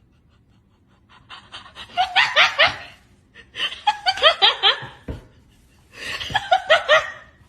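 A person laughing hard in three bouts of quick repeated ha-ha pulses, with short pauses between them.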